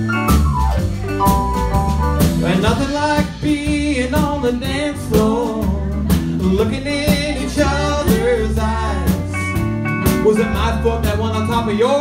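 Live country band playing a two-step tune: fiddle, electric bass guitar, drum kit and electric keyboard, with a wavering melody line over a steady bass and drum beat.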